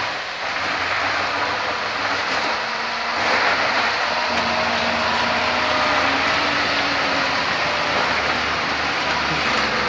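Heavy 4x4 all-terrain truck's engine running hard under load as the truck crawls through deep mud, its pitch rising slightly midway.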